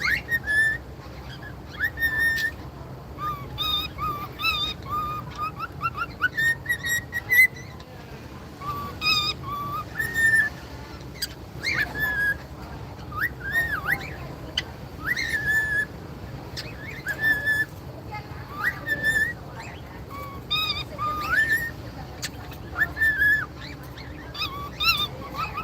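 Cockatiel whistling a song of short clear notes, held tones and rising and falling glides, with sharp chirps between the phrases.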